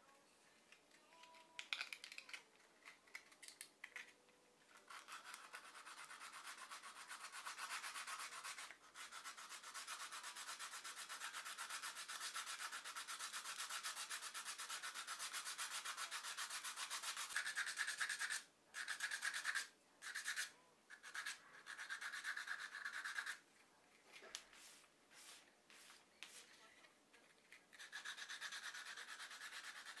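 Small carved wooden piece being sanded by hand, the abrasive rubbed back and forth over the wood in a steady scratchy rubbing. It starts in short strokes, runs on continuously for a long stretch, then stops and starts several times near the end.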